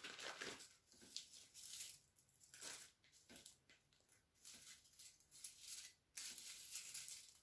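Faint, irregular rustling and crackling as crisp, fully dried spinach leaves are picked off a dehydrator tray and dropped into a plastic zip-top bag, with the bag crinkling.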